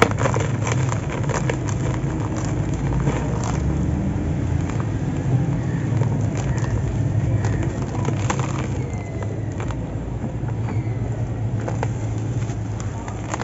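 Dry, crumbly grey cement blocks crushed by hand and poured into a plastic basin, with gritty crackles and the patter of falling grit and powder. Under them runs a steady low rumble.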